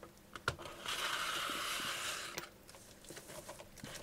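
Hands handling a tin of watercolour pencils and its packaging: a knock, then a steady sliding rustle lasting just over a second, followed by a few light clicks.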